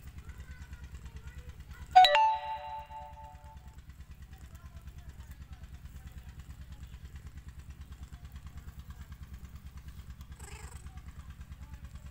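A steady low rumble pulsing about five times a second. About two seconds in, a sharp metallic clank rings for about a second and a half.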